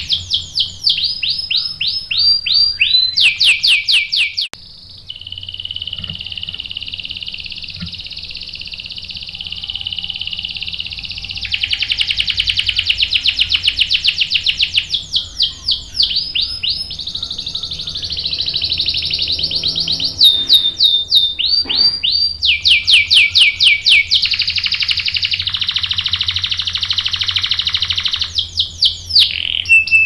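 Domestic canary singing continuously and loudly: long rolling trills alternating with runs of rapid, sweeping repeated notes, with a couple of brief pauses.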